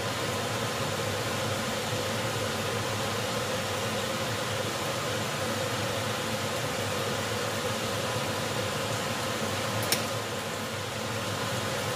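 Steady fan-like whir with a faint hum, and one light click about ten seconds in.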